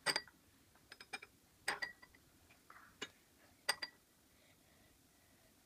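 Metal spoon clinking against a small glass bowl while stirring egg-dye tablets into vinegar to dissolve them. A handful of sharp, ringing clinks, some in quick pairs, over the first four seconds.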